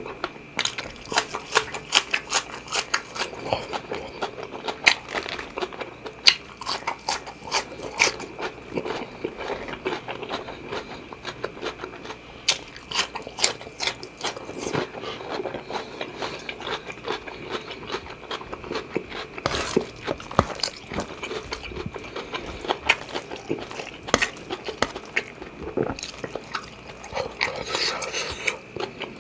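Close-miked eating of seafood fried rice with shrimp and squid: chewing and biting with many short wet clicks and smacks.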